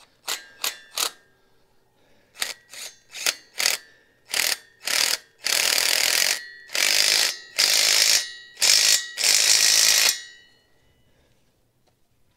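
Cordless power driver turning the lock screw of a mechanical mini excavator quick hitch to lock a rake attachment's pin in place. It runs in short trigger pulses at first, then in longer runs, and stops about ten seconds in.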